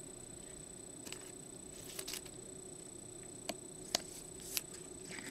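Trading cards being handled and slid into rigid clear plastic toploaders: scattered light clicks and plastic slides, the sharpest about four seconds in, over a faint steady hum.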